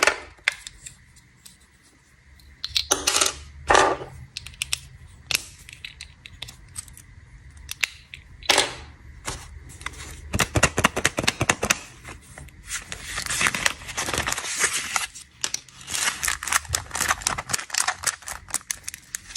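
Snack packaging being handled and unwrapped: plastic wrappers crinkling and rustling, with scattered sharp clicks and taps. The crinkling is densest in two longer stretches in the second half.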